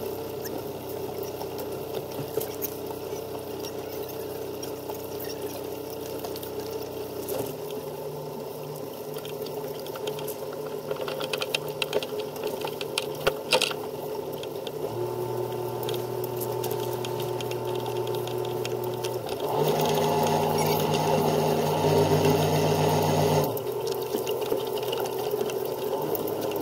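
A sailing yacht's small inboard diesel engine running while the boat manoeuvres out of a marina berth, its note changing in steps at a few points. There are a few sharp knocks near the middle, and a louder stretch of about four seconds about three quarters of the way through.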